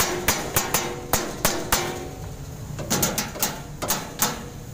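Quick, sharp taps of a hand tool as an electrician works on a wire run beside a panel board, about four a second. The taps break off about two seconds in and resume a second later in a shorter burst.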